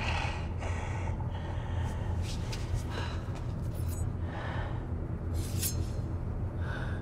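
A person breathing hard in short, noisy gasps over a steady low rumble.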